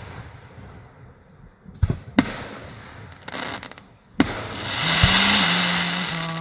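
Fireworks going off: two sharp bangs close together about two seconds in and another about four seconds in, the last followed by a long, loud crackling hiss. A steady low hum sets in near the end.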